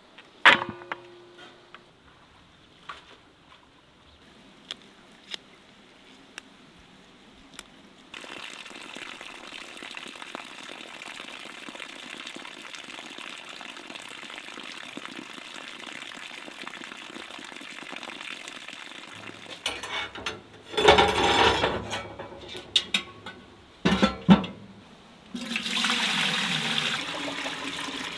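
A sharp metal clank with a short ring near the start, then water running steadily from a garden tap into a log trough. Louder splashes and knocks come later, then water is poured from a metal jug into a steel bowl near the end.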